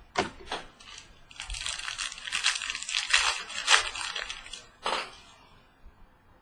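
Wrapper crinkling and crackling as a trading-card pack is torn open and handled. A few sharp clicks come first, and the crinkling ends with a sharp rustle about five seconds in.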